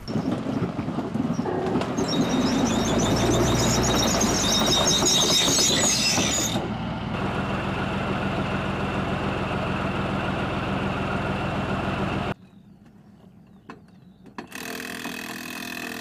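Armoured tracked vehicle sounds in short cut clips: an engine running with high squealing over it at first, then a steady engine hum that cuts off suddenly about twelve seconds in. A quieter gap follows, then another engine hum near the end.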